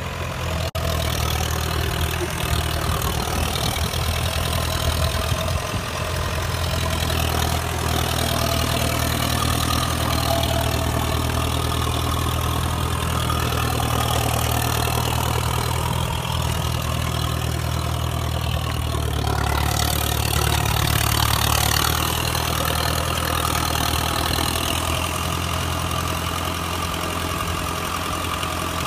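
The 99 hp Kubota diesel engine of a tracked micro drill rig running steadily at idle. About two-thirds of the way through it grows somewhat louder and brighter for a few seconds, then settles back.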